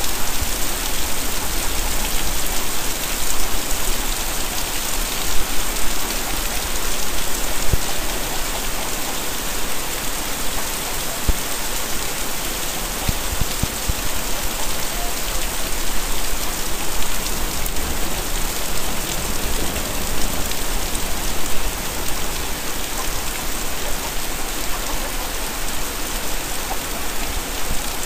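Heavy rain pouring steadily, a dense, even hiss of rain hitting the ground, roofs and pavement, with a few sharper drop ticks.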